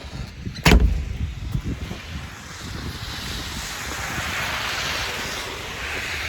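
One heavy thump about a second in, then a steady rushing noise of wind that builds and holds.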